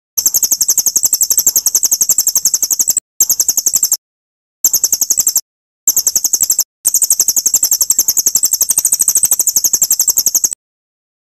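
A bird's high, very fast, even trill of repeated notes, from a masteran recording used to teach white-rumped shamas (murai batu). It comes in five bouts, a long one, three short ones and a long one near the end, each starting and stopping abruptly.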